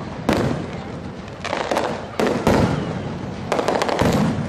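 Aerial fireworks shells bursting one after another: about seven sharp bangs, each trailing off in a rolling echo.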